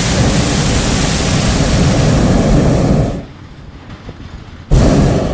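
Hot-air balloon's propane burner firing: a loud steady roar that cuts off about three seconds in, then a second short blast near the end.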